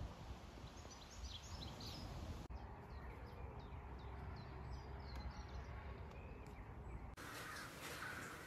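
Outdoor ambience of small birds chirping in short high notes over a low rumble. The sound changes abruptly twice. In the last second or so, louder, harsher bird calls take over.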